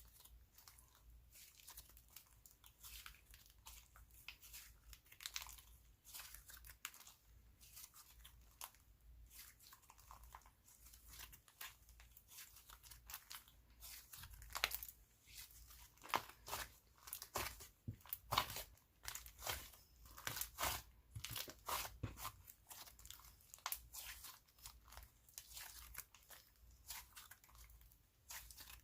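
Hands squishing, stretching and poking a clear-and-white glue slime, with faint crackly clicks and pops. The clicks come thicker in the middle of the stretch.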